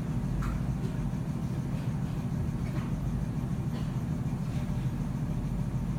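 Steady low rumble of room background noise, with a few faint, brief voice fragments.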